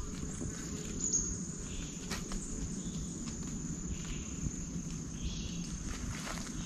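Insects trilling with one steady high-pitched tone, over a low rumble.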